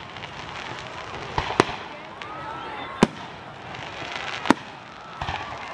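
Aerial fireworks shells bursting: several sharp bangs at irregular intervals, the loudest about one and a half, three and four and a half seconds in, over a steady noisy background.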